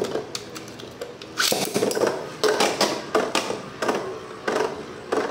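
Two metal Beyblade spinning tops whirring in a plastic stadium, with sharp clacks every second or so as they hit each other and the stadium wall.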